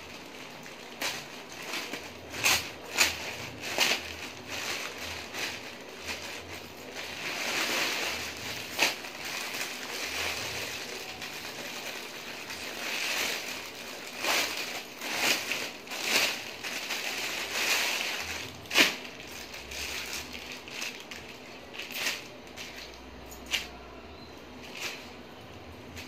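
Plastic packaging crinkling and rustling, with sharp crackles and snaps, as a polythene courier mailer is opened and a saree is unwrapped from its clear plastic bag.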